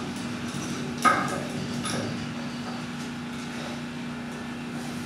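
Pliers clinking against a steel cotter pin and fitting, with one sharp clink about a second in and a few lighter clicks after it, over a steady low hum.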